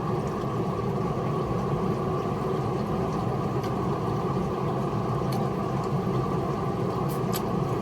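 Steady low mechanical hum, like a running engine or air-conditioning unit, with a few faint clicks near the end.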